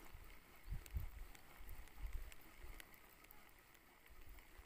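Faint wind buffeting the microphone, with a couple of low rumbles about a second and two seconds in, over quiet open-air ambience.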